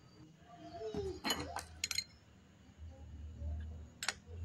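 Steel open-end wrenches clinking against each other and against a wood router's collet nut as they are fitted to loosen the router bit: a few sharp metallic clinks about a second in and one more near the end.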